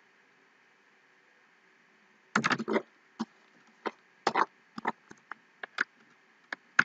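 Irregular clicking of a computer keyboard and mouse, starting about two seconds in after a near-quiet stretch with a faint hum. A quick cluster of clicks comes first, then single clicks roughly every half second.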